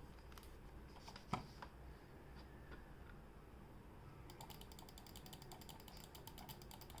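Faint clicks of an HP M260 gaming mouse's buttons, then, from a little past the middle, the scroll wheel turning: a quick, even run of soft notched ticks, about ten a second.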